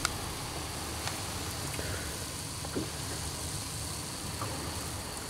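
Steady hiss of a portable canister gas stove burning under a stainless pot of coffee that is bubbling and close to a rolling boil, with a few faint ticks.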